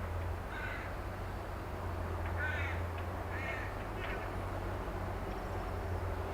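A crow cawing four times, the calls spaced about a second apart, over a steady low engine drone from an excavator working down the road.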